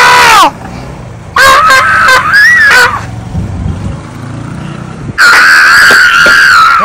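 A woman wailing in distress: a loud long cry that drops and breaks off half a second in, a wavering cry about a second and a half in, and a long held high wail from about five seconds in.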